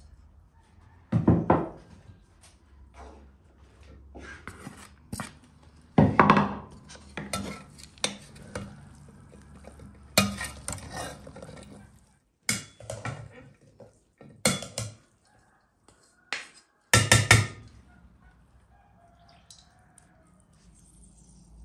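Wooden spoon and metal slotted spoon knocking and scraping against an enamel bowl as food is mixed in it, in a run of irregular clatters.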